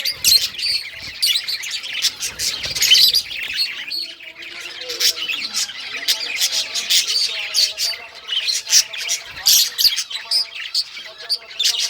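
A group of budgerigars chirping and chattering, with many quick overlapping chirps throughout and some lower warbling mixed in.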